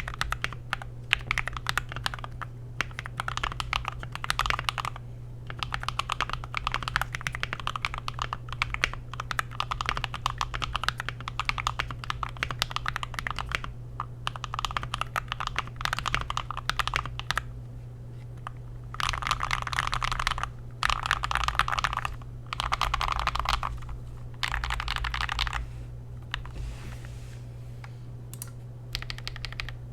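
Typing on a GMMK Pro keyboard with an FR4 plate, tape mod and C3 Tangerine linear switches: a steady stream of fast keystrokes, with several stretches of rapid, tightly packed typing about two-thirds through, lighter toward the end.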